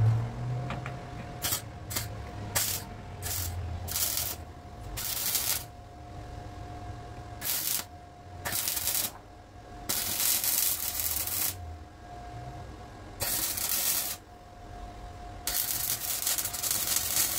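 Electric arc welding on a car body's underside. The arc crackles in bursts, a few short tacks first, then longer runs of one to two seconds. A faint steady hum continues between the bursts.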